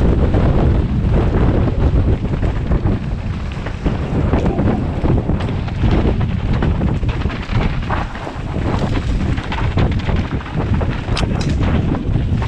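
Wind buffeting the microphone of a helmet-mounted camera on a fast downhill mountain-bike descent, with tyres running over dry, dusty dirt and repeated knocks and rattles as the bike hits bumps.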